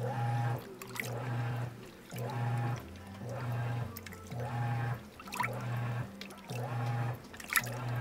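Giantex portable top-load washing machine agitating a wash load: its motor hums in short pulses about once a second as the agitation changes direction, with water sloshing and splashing in the tub. The machine runs quietly.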